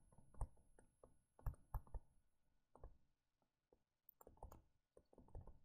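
Near silence with faint, scattered clicks and taps, the loudest clustered about a second and a half to two seconds in: a stylus tapping and sliding as it hand-writes notes on a tablet.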